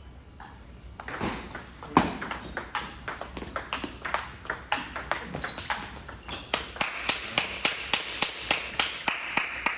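A table tennis ball clicking off paddles and bouncing on the table, a quick run of sharp ticks. The loudest click comes about two seconds in, and near the end the clicks come evenly, about three or four a second.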